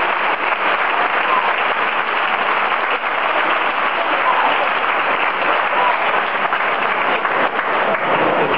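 Large arena crowd applauding steadily, a dense continuous patter of many hands clapping.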